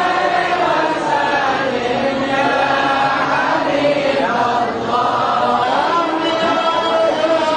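Many voices chanting together in sung unison, the lines loud and held without a break: devotional Maulid chanting by a crowd.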